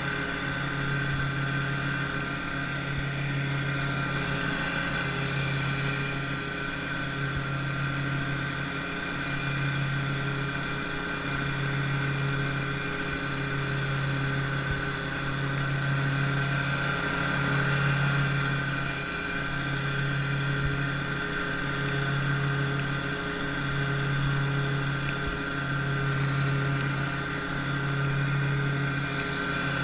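An engine running steadily, with a low hum that swells and dips about every two seconds.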